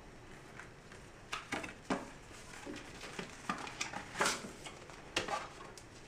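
Light rustling and tapping of paper and card packaging as a small documentation packet is handled: a scatter of short clicks and scrapes, the loudest about four seconds in.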